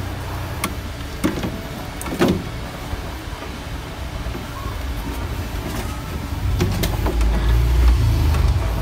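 Scattered clicks and knocks of the washing machine's drain motor and drain plug parts being handled and fitted, over a steady low hum that swells in the last couple of seconds.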